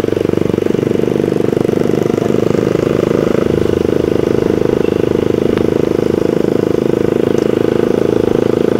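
Suzuki Satria FU supermoto's 150 cc single-cylinder four-stroke engine running steadily under way, heard from the rider's seat.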